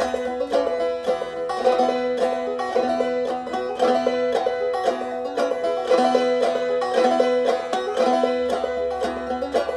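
Clawhammer-style banjo playing a blues tune, with plucked notes in a steady, even rhythm.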